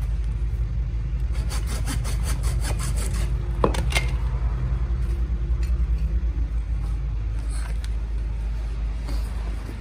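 Hacksaw rasping on lead battery plates in quick strokes, about five a second, for a couple of seconds, then a couple of sharp knocks as the plates are handled. A steady low hum runs underneath throughout.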